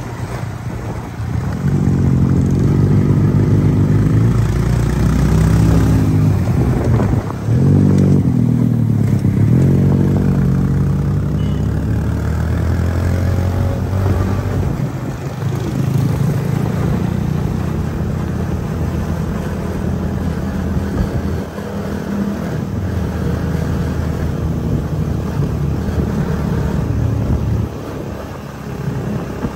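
Motorcycle engines running at riding speed, their pitch rising and falling as the riders open and close the throttle, with a sharp rev about seven seconds in.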